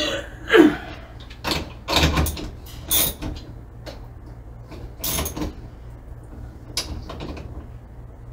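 Hand tools and metal hardware being handled as battery cable lugs are bolted up with a 9/16 deep-well socket: a series of irregular knocks and clanks.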